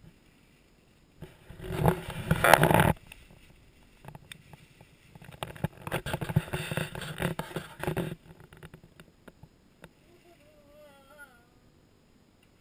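Wrapping paper being torn and crumpled off a gift, in two loud bursts of crackling and ripping, the second one longer.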